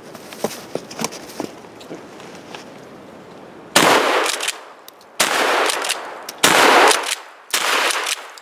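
A 1964 Sears Model 200 pump-action 12-gauge shotgun firing birdshot. After a few light clicks, it fires four loud shots about a second and a quarter apart, each trailing off in a short echo.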